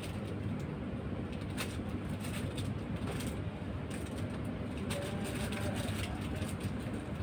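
Steady low background rumble with scattered faint clicks and ticks.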